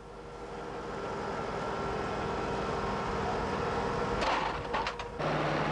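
Geismar PRD rail and sleeper positioning machine running along the track, its engine and hydraulics giving a steady hum. About four seconds in there is a louder stretch of metallic knocks, and just before the end the sound switches abruptly to a lower, steadier engine hum.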